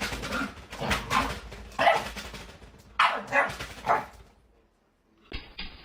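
Dog barking, a string of about six short, rough barks over roughly four seconds, then stopping.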